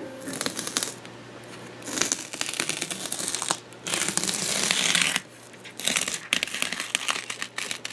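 An X-Acto knife blade drawn along a ruler, cutting a shallow slot in a foam fuselage: a series of scratchy, crackly strokes with short pauses between them.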